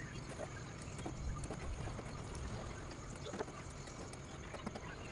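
Faint, irregular clicks and rustles of rattan strands being handled and worked into woven cane webbing, over a steady low rumble.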